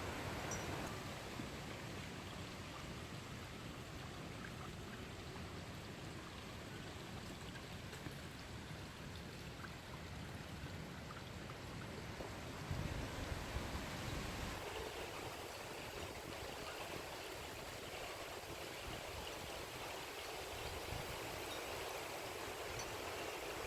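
Wind rushing and buffeting the microphone: a steady rushing noise with a low rumble that swells in a stronger gust about halfway through, then eases, leaving a lighter hiss.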